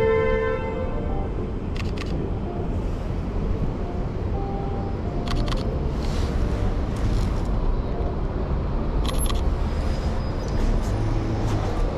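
Steady city street traffic rumble, with a vehicle horn sounding at the start and stopping about a second in. A camera shutter clicks several times, mostly in quick pairs.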